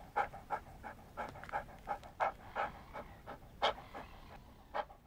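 A dog panting quickly and rhythmically, about three breaths a second.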